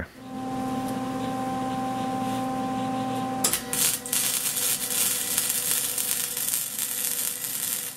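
Steady electrical hum, then about three and a half seconds in an arc welder strikes up and crackles steadily as the man welds steel square tubing for the dump-bed frame, stopping just before the end. The welder looks like a MIG (wire-feed) machine.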